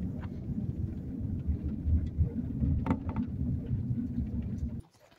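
Van driving along a paved highway: a dense, low road-and-engine rumble that cuts off abruptly near the end.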